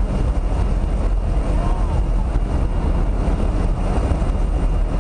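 Loud, steady engine and wind noise inside the cabin of a skydiving plane in flight.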